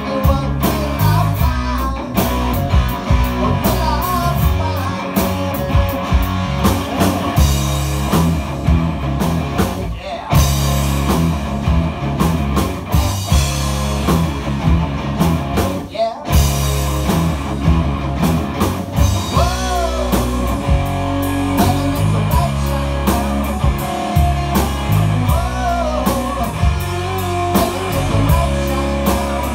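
Live rock band playing electric guitars, bass guitar and drum kit, with a steady drum beat throughout.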